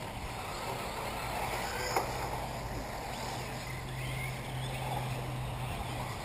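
Radio-controlled off-road model cars running on a dirt track in the distance, their motors faintly whining up and down over a steady low hum. A single sharp click about two seconds in.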